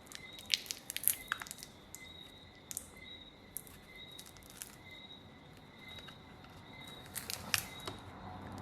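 Scattered small clicks and crackles as a pry tool works under the heated glass back cover of a Redmi Note 8, separating the adhesive. A cluster of clicks comes in the first second or so and another near the end. A faint steady high whine lies underneath.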